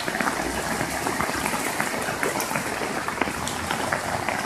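Heavy rain falling: a steady, dense patter of drops.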